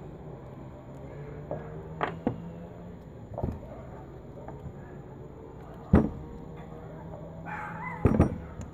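Several separate knocks and clicks of a screwdriver and metal pump parts being handled on a wooden workbench, the loudest about six seconds in and a quick pair just after eight seconds, over a steady low hum.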